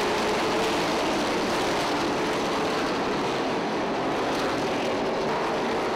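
A pack of pavement late model stock cars racing past, their V8 engines blending into one steady drone.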